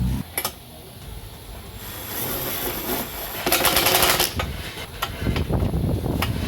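Hand tools working metal hitch hardware: a click, then a burst of rapid mechanical rattling lasting about a second midway, with clunking and handling noise after it.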